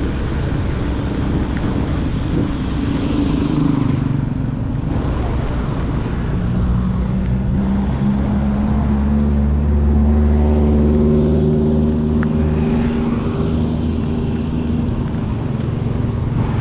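A motor vehicle's engine running steadily, its pitch shifting slowly, over a continuous rumble of road and wind noise.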